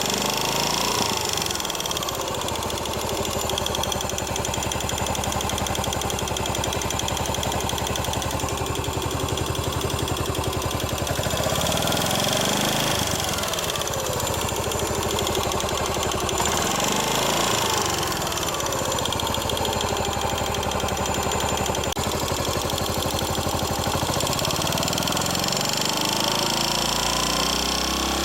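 Yamaha SR400 air-cooled single-cylinder engine idling, with a few brief rises and falls in revs. It carries an unpleasant noise from the cylinder head that grows louder as the engine warms and has not changed with any adjustment.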